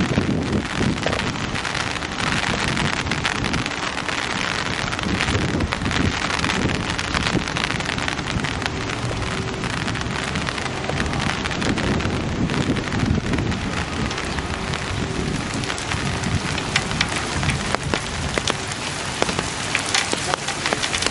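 Heavy rain of large drops falling on open water: a dense, steady hiss with the patter of single drops through it.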